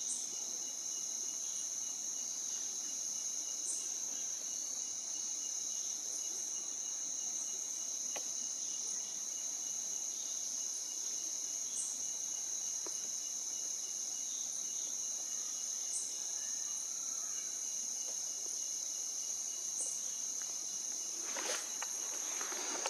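Insects droning steadily at a high pitch, with a short higher chirp about every four seconds. A brief rustling noise comes near the end.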